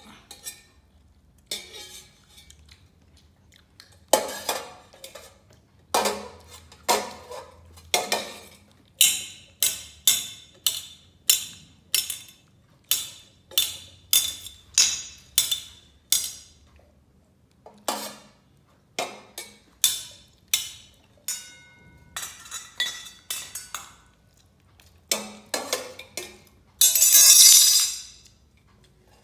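A stainless steel cooking pot struck over and over with a metal slotted spoon, about two clanging, briefly ringing hits a second, with a loud rasping noise lasting about a second near the end.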